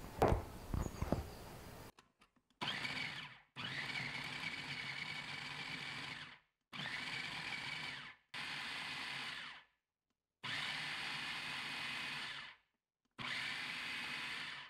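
A few light knocks, then an electric food processor run in six short pulses of one to three seconds each, stopping briefly between them, as its blade chops cold butter cubes into flour.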